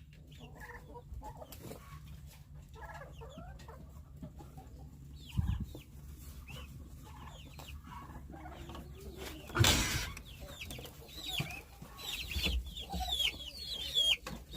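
Baby chicks in a brooder peeping, short high falling chirps that grow busier toward the end. There is a low thump about five seconds in and a brief loud noise a little before ten seconds.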